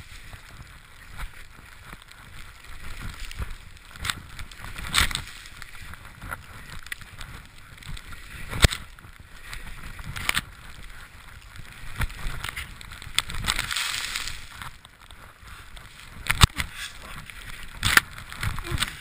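Skis running through deep powder snow on a steep descent: a steady hiss of snow spray and wind on the helmet camera's microphone, rising in a longer swell about two-thirds of the way through, broken by sharp knocks every second or two.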